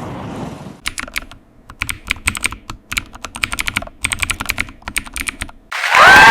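Typing on a computer keyboard: irregular runs of quick key clicks with short pauses between them. Near the very end a loud burst of crowd-like noise with sliding tones cuts in.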